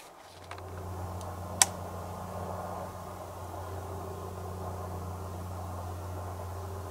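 A steady low hum starts just after the footsteps stop. A single sharp click comes about a second and a half in.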